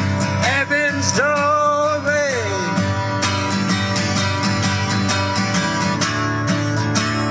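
Music: a song with acoustic guitar. A voice sings held, wavering notes for the first two and a half seconds or so, then the guitar carries on alone with steady strumming.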